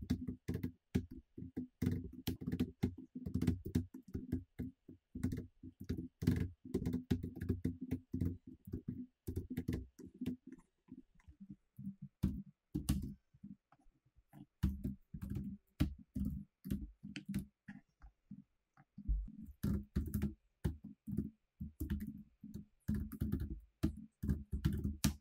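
Computer keyboard typing in quick runs of keystrokes, with a couple of short pauses in the middle.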